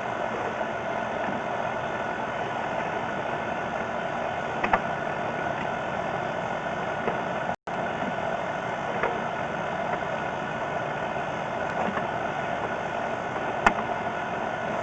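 Steady engine-like running noise, like a motor idling, with a couple of faint clicks.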